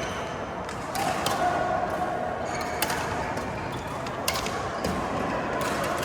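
Badminton rally: rackets hitting the shuttlecock in a run of sharp cracks roughly a second apart, over steady background noise.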